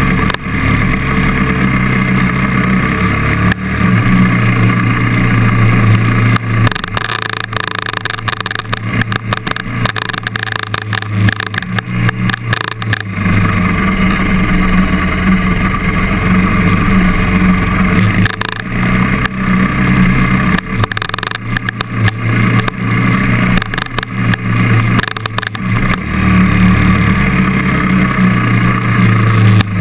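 KTM trail motorcycle engine running under way on a dirt track, its pitch rising and falling in steps as the rider accelerates, backs off and changes gear, with clusters of short knocks and rattles partway through.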